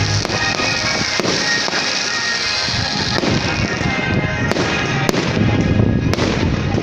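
Fireworks display: dense crackling and fizzing with several sharp bangs, more of them in the second half, with show music playing underneath.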